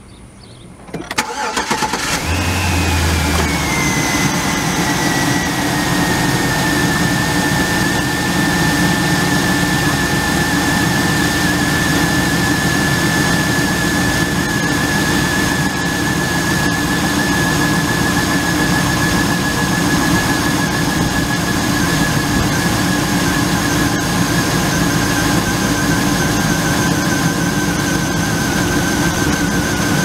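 GM 5.3-litre Vortec V8 truck engine starting about a second in. Its speed flares and falls over the next few seconds, then it idles steadily. After a quart of transmission fluid was run in the oil as a cleaner, the owner hears its lifter tapping gone or a lot less.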